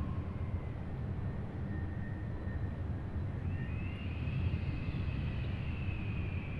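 Dark ambient soundscape music: a steady low rumbling drone with faint thin high tones drifting above it, one of them rising about halfway through and then slowly sinking.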